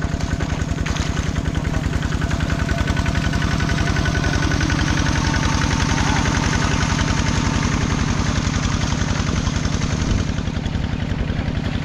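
An engine running steadily at a constant speed with a rapid, even beat.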